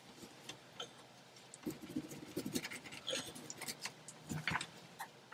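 A cloth rubbing over a handheld shower head and its wall holder, with a string of small plastic clicks and knocks as the head is handled. The clicking and rubbing are busiest through the middle stretch.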